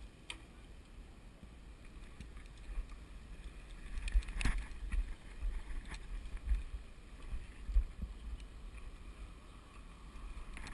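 Gusty wind rumble buffeting an action camera's microphone while riding a road bike, growing stronger about four seconds in. A sharp click comes at the same point.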